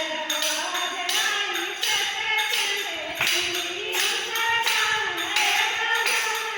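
Voices singing a Hindi devotional bhajan to a steady beat of tambourine-like jingling percussion.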